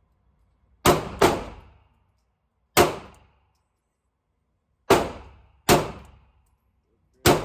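Six gunshots fired at an irregular pace, each a sharp crack with a short ringing echo of the range. Two come close together about a second in, and the rest follow a second or two apart.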